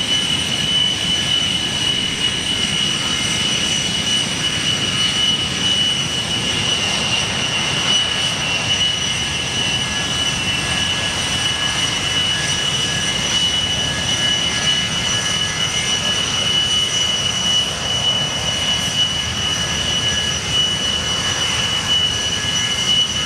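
Aircraft engine running steadily, a constant high whine over a rushing noise.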